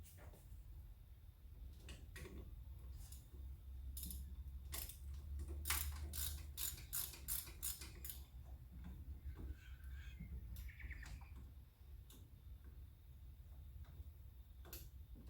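Socket ratchet clicking in runs of quick strokes, densest about five to eight seconds in, as bolts on the back of a car's rear brake wheel cylinder are undone, with a few short squeaks and a steady low hum underneath.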